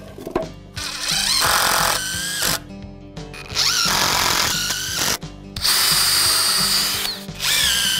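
Cordless DeWalt drill driving wood screws into 2x4 lumber in four runs, each starting with a rising whine as the motor spins up.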